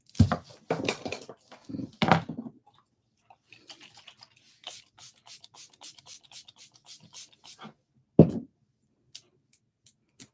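A face-mist spray bottle spritzed rapidly over the face, a dozen or more short hisses at about five a second. Before it come rubbing and knocking close to the microphone, and after it one loud thump.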